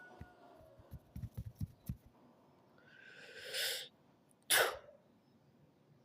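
A sneeze: a breathy drawn-in 'ah' followed about a second later by a short, sharp 'choo', after a few soft low thumps.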